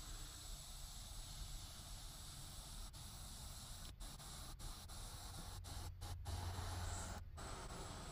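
Faint steady hiss of a small handheld heat gun blowing hot air onto heat-shrink tubing over soldered wire joints.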